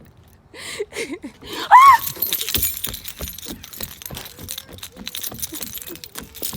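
A woman's single short, high-pitched scream about two seconds in, in fright at a dragonfly flying at her, followed by a quick, steady run of clicking and jingling until the end.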